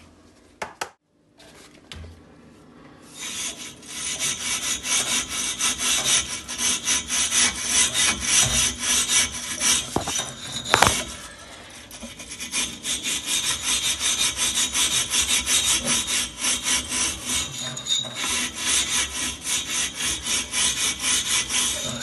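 Flue brush scrubbing back and forth between the heat exchanger fins of a Potterton Gold boiler, cleaning out deposits during a service. It starts a few seconds in as quick, repeated rasping strokes, breaks off briefly near the middle after a sharp knock, then carries on.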